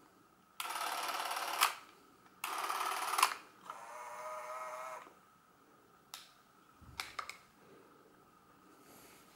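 Porst ZR 422 Super 8 cine camera's motor and film-transport mechanism running in two steady whirring bursts of about a second each, each cut off with a click. Then comes a quieter, higher motor whine for about a second, followed by a few light handling clicks.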